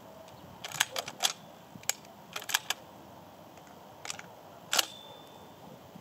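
A series of sharp mechanical clicks in irregular groups: several about a second in, a few more between two and three seconds, and two near the end, the last the loudest.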